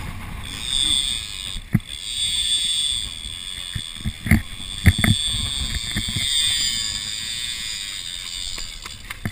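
Avet 80 big-game reel's drag screaming as a hooked shark strips line off it, a steady high-pitched whine. It is broken by several sharp thumps and knocks.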